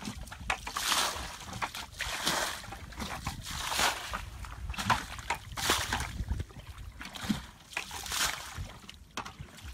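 Muddy water sloshing and splashing as a plastic bucket scoops it out of a shallow ditch and tips it out, one bucketful after another, about once every second or so.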